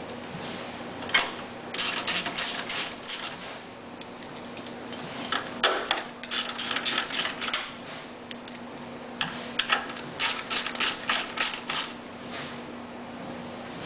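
Hand ratchet wrench clicking in three bursts of rapid clicks, about four or five a second, as the generator's motor-mount bolts are run in loosely.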